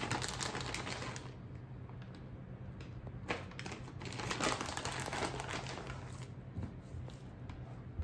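Plastic bag of shredded cheese crinkling and rustling in the hands in irregular bursts as the last of the cheese is emptied out.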